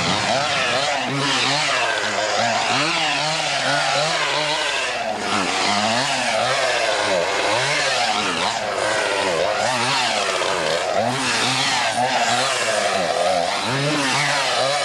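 Chainsaw revving up and down again and again, its engine pitch swinging high and low every second or so without stopping.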